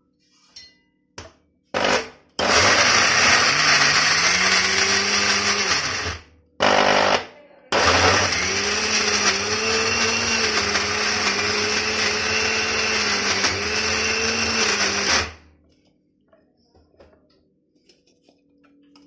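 Kenstar mixer grinder running in pulses, grinding wood apple pulp with jaggery and cardamom into a thick paste without water. There are a couple of quick pulses, a run of about four seconds, another short pulse, then a long run of about seven seconds that cuts off about 15 seconds in.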